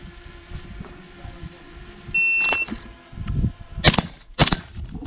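Shot timer start beep, a steady high tone about half a second long, followed about a second and a half later by two rifle shots fired as a double tap roughly half a second apart.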